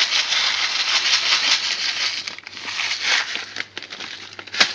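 Plastic bag of thin vermicelli noodles crinkling as the dry noodles are poured out into a steel pot: a steady rustle for about two seconds, then patchier handling, with a sharp click near the end.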